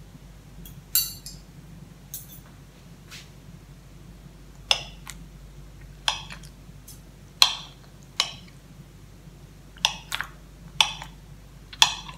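Stainless knife and fork clinking against a ceramic plate while cutting soft steamed rice rolls: about ten sharp clinks at irregular intervals, some in quick pairs.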